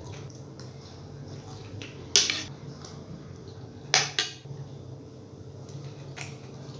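Cutlery clinking against a plate while eating: two sharp clinks about two and four seconds in, the second quickly followed by another, with a few fainter taps between.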